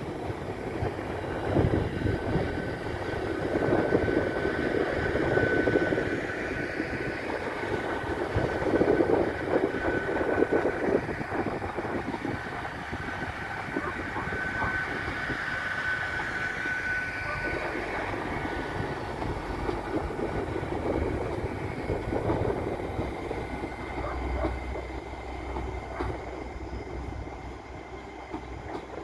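Great Western Railway Intercity Express Train running on its underfloor diesel engines as it departs, with engine drone and wheel-on-rail rumble. A steady high whine runs through the first half, and the sound fades as the train pulls away.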